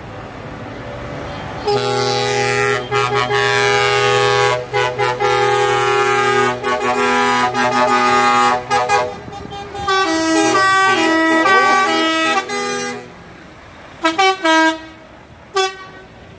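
Lorry air horns sounding as trucks pass: a long multi-tone blast held for about seven seconds, then a horn stepping between a few notes for a couple of seconds, then a few short toots near the end.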